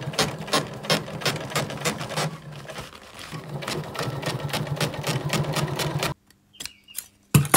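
Sewing machine running, stitching a strengthening top stitch along a seam of a vinyl motorcycle seat cover. It makes a steady hum with rapid, even clicking and stops suddenly about six seconds in. A single sharp knock follows near the end.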